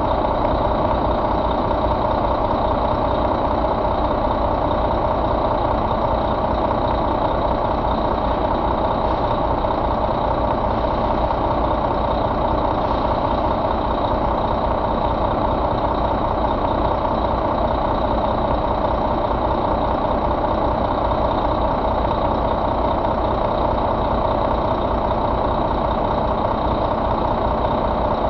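Volvo D13 inline-six turbo diesel idling steadily in a truck, with no revving or change in speed.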